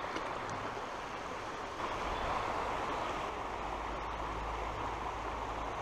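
Steady rush of a small river's water flowing over rocks, with a low rumble joining about two seconds in.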